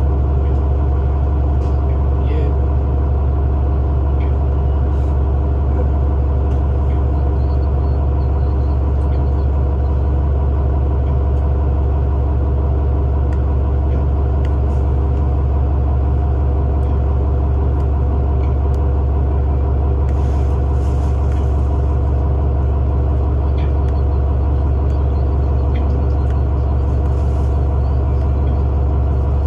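A 2019 New Flyer Xcelsior city bus idling while it stands at a stop, heard from inside the cabin. A steady low engine drone with level hum tones above it stays unchanged throughout.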